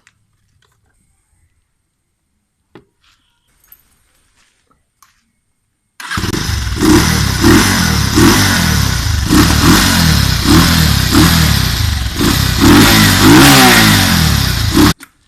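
Bajaj Pulsar motorcycle engine, fitted with a K&N air filter, being revved repeatedly in quick blips, about two a second. It starts suddenly about six seconds in and cuts off suddenly just before the end, after near silence.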